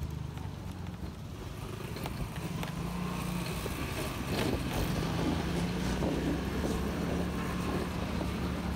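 Motorcycle engine running steadily at low riding speed, a low hum that grows a little louder about three seconds in.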